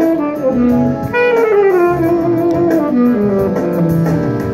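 Saxophone playing a smooth-jazz melody over guitar accompaniment: a short phrase stepping down in pitch, then a longer one from about a second in that steps down again to a low note near the end.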